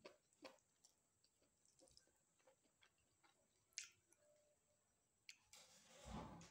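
Faint close-up eating sounds: soft wet clicks of chewing and lip smacks. Near the end comes a short squishing rustle as fingers knead rice and dried fish in a steel bowl.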